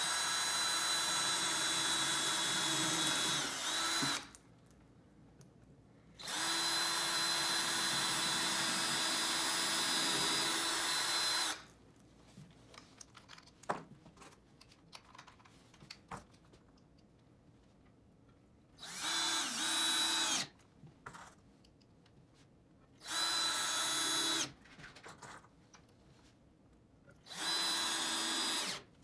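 Cordless drill with a pilot bit drilling pilot holes into rough lumber, running at a steady speed in five runs: two long ones of several seconds, then three short ones in the second half. Small knocks of handling between the runs.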